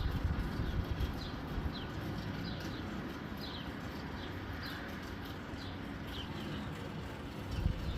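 Steady hiss of rain with a small bird calling repeatedly over it in short chirps, each falling in pitch, about one or two a second, dying out around six seconds in.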